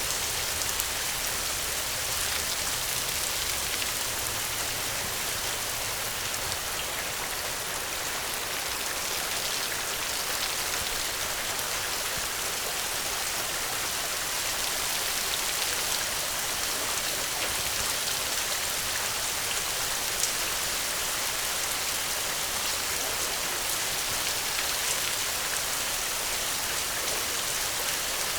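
Steady rain falling, a dense even hiss with fine scattered drop ticks, with a faint low rumble during the first few seconds.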